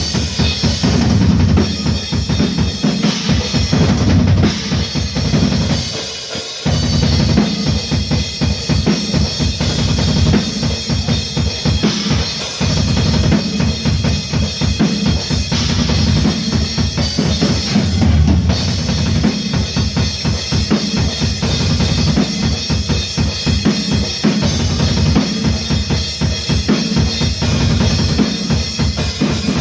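A metal band playing loud music, with a drum kit's bass drum and snare to the fore over sustained chords. The music dips briefly twice, about six seconds in and again near the middle.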